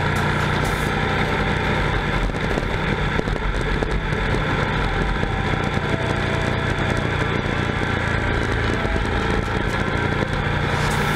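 Yamaha XT1200Z Super Ténéré's parallel-twin engine running steadily at cruising speed, under constant wind and road noise.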